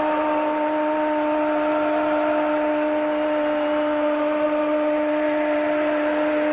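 An Argentine football commentator holds a long, steady shout of 'gol' for a goal, over the noise of the stadium crowd.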